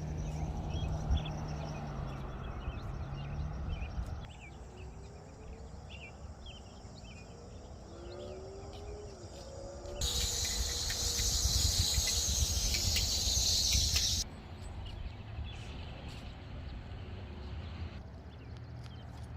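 Small birds chirping in short scattered calls over a low outdoor rumble, with a steady high insect buzz that starts suddenly about halfway through and stops abruptly a few seconds later.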